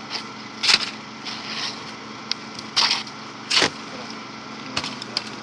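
Pneumatic roofing nail gun firing nails through asphalt shingles into the roof deck: three loud sharp shots spaced irregularly, then a couple of fainter ones near the end, over a steady low hum.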